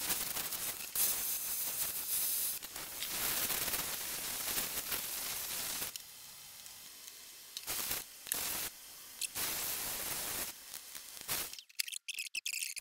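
Vacuum cleaner with a round dust-brush nozzle running, a steady rushing hiss as it sucks up cutting debris from the workbench. The hiss drops and comes back in surges from about halfway, then cuts off about a second before the end, leaving a few light clicks.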